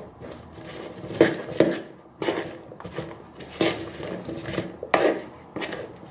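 A utensil stirring a mayonnaise-dressed radish and spring onion salad in a plastic bowl, scraping and clicking against the bowl in irregular strokes.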